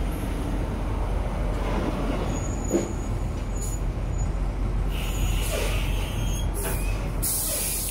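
Truck-stop ambience: idling diesel truck engines give a steady low rumble, with several air-brake hisses in the second half, the last and strongest near the end.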